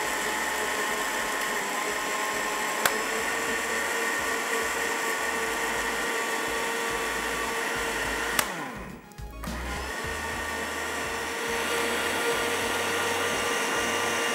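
Electric blender running steadily, blending a strawberry smoothie with ice cubes. About eight and a half seconds in there is a click, the motor winds down for about a second, then it runs again.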